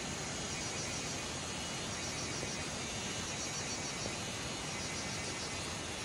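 Steady rush of a waterfall, thin streams falling onto rock and into a pool, with faint insect chirring above it.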